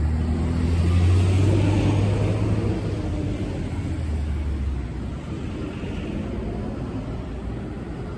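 Low engine rumble of a nearby road vehicle, loudest for the first few seconds and then easing off.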